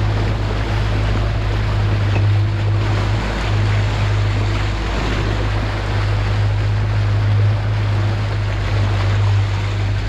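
Boat's Yamaha outboard engine running with a steady low hum, under water washing and splashing along the hull and wind.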